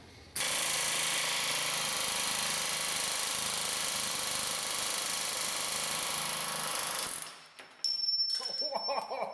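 Astro 4980 'Big Nasty' .498-shank pneumatic air hammer running flat out for about seven seconds as it drives a ball joint out of the steering knuckle, then cutting off. Sharp metallic clinks and ringing follow near the end.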